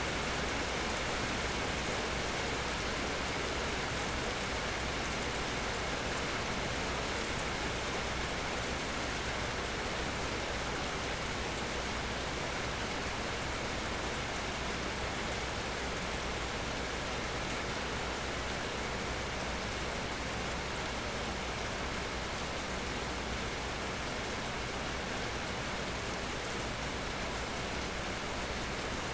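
Steady rain falling, an even hiss of many drops with no change in intensity.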